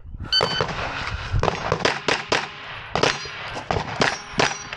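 A shot timer's start beep, then a string of fast shots from a Glock 34 9mm pistol, with hits ringing on steel targets.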